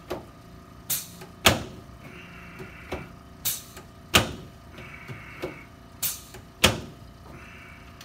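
A hand slapping a man's back through his T-shirt: about a dozen sharp slaps at an uneven pace of roughly one every half second to second, a few much louder than the others.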